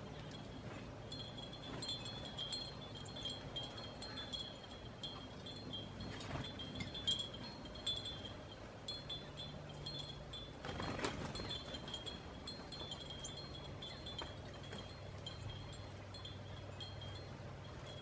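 Wind chime ringing gently and repeatedly, a couple of high, clear tones shimmering on and off, with a brief whoosh about eleven seconds in.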